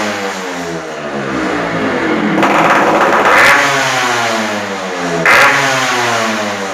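Yamaha RX two-stroke single-cylinder motorcycle engine with an expansion-chamber exhaust, loud, being revved: the revs fall away, a hard rev about two and a half seconds in dies back down, and another short blip follows near the end.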